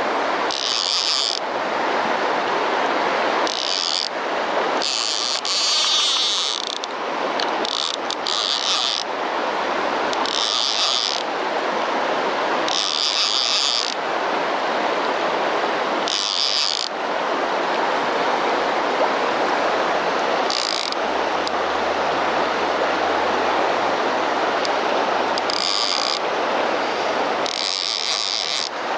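Steady rushing of a wide, fast, shallow river, with short higher hisses that come and go every few seconds.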